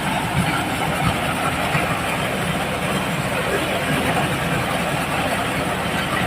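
Mobile corn sheller running steadily, its engine and threshing mechanism making a continuous, even mechanical din with no pauses or changes.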